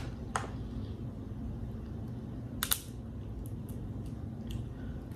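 A few sharp clicks and small cracks of snow crab shell being snapped and picked apart by hand, the loudest a quick pair about two and a half seconds in, over a low steady hum.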